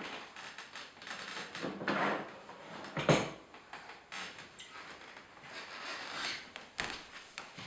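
The removed sheet-metal side panel and open case of a computer tower being handled: scraping and rustling with several knocks, the sharpest clunk about three seconds in.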